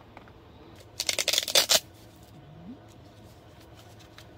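A fabric lantern pouch being handled: one sharp rasping burst of rapid clicks, under a second long, about a second in, then only faint handling ticks.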